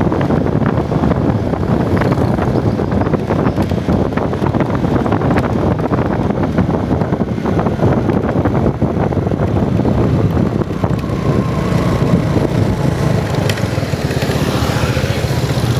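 A small vehicle engine running steadily while under way, mixed with rushing noise from travel.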